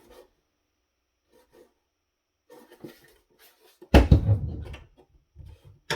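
Hands handling a metal audio-video switcher during disassembly. There are faint rubs and taps, then a loud knock about four seconds in, followed by a few smaller clunks.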